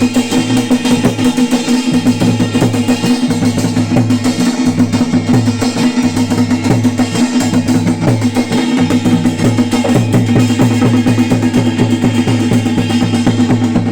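Drum music: fast, even drumming over a steady held drone note, loud throughout.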